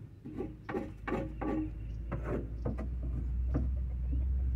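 Scraping on the wooden boards of a chicken coop: a quick run of short rasping strokes that thin out after about two and a half seconds, over a steady low rumble that comes in about half a second in.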